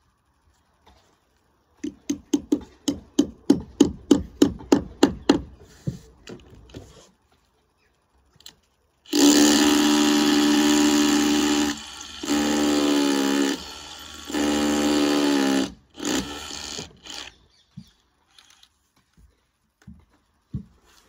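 About a dozen hammer strikes, roughly three a second, then a power drill running at a steady speed in three bursts of a few seconds each.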